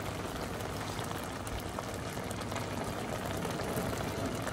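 Liquid boiling in a pot on a stove: a steady, even hiss with faint light ticks.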